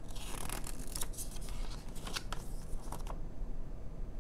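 Paper instruction leaflet rustling and crackling as it is handled and its pages turned, with a run of crisp crackles over the first three seconds that then dies down.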